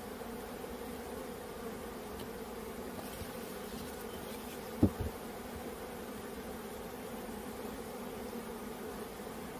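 Many honeybees buzzing in a steady hum, a low drone with a higher overtone. About five seconds in, two brief low thumps close together, the loudest sound here.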